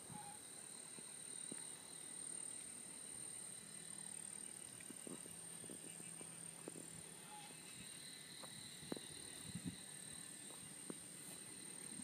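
Faint outdoor ambience: a steady, high-pitched insect drone with a few scattered soft clicks.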